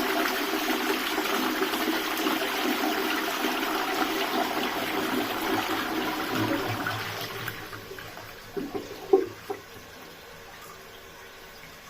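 Low-level Twyford Classic cistern flushing a toilet pan: water rushing steadily, then tailing off about two-thirds of the way through. A few sharp knocks follow near the end, then a faint steady trickle as the cistern refills.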